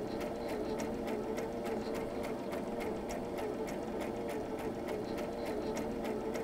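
Brother electric sewing machine running steadily: its motor hum under a rapid, even ticking of the needle, several stitches a second, as it sews carbon nanotube yarn from the bobbin into T-shirt fabric with cotton thread on top.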